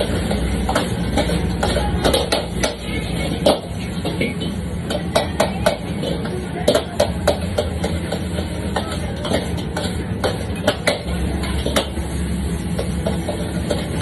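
Metal ladle and spatula scraping and clanking against a wok, in many quick irregular strikes, as egg fried rice is stir-fried. Under it runs a steady low roar from the wok station.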